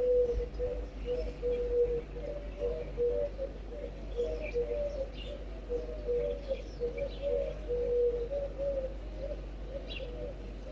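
Doves cooing in a continuous run of short low notes, with small birds chirping higher up now and then.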